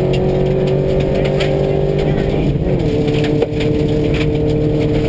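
Subaru rally car's engine pulling hard at speed on a gravel stage, heard from inside the cabin, its note shifting about halfway through. Scattered sharp ticks of gravel striking the car run through it.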